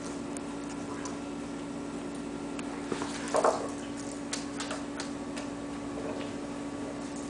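Light, irregular clicks and rattles of a kitten's paws batting the balls around a plastic ball-track cat toy and scrabbling on its cardboard scratch pad, with a louder rattle about three and a half seconds in. A steady low hum runs underneath.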